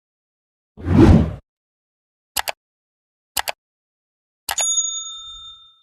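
Editing sound effects: a whoosh about a second in, two quick double clicks a second apart, then a click and a bright bell-like ding that rings and fades.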